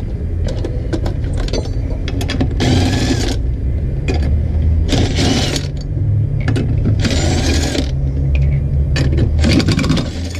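Lug nuts being run off a car wheel with a ratchet wrench, in four short bursts of ratcheting about two seconds apart, over a steady low hum.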